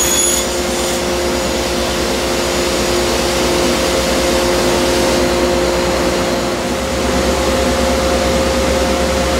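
Table saw and its dust collection running steadily, a continuous machine hum and rush of air. A high whine from the blade cuts out about half a second in.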